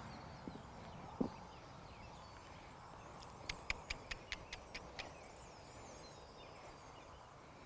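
An American Mammoth Jackstock donkey's hooves knocking on a wooden platform twice in the first second or so. About halfway through comes a quick run of about eight sharp clicks.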